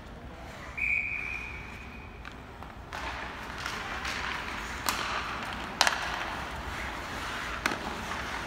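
A referee's whistle blows once, a single steady note lasting about a second and a half. Then comes a rush of ice-hockey play: skates scraping the ice, with a few sharp clacks of sticks and puck.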